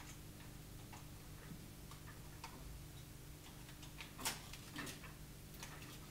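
Faint scattered clicks and light rustles of a tiller's handlebars being moved and their cardboard protectors handled, with a slightly louder one about four seconds in, over a low steady hum.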